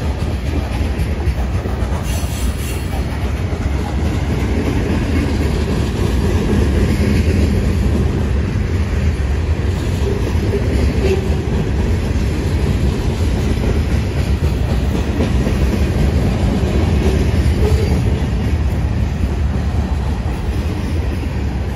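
Freight cars rolling past close by: a steady, loud rumble of steel wheels on the rails.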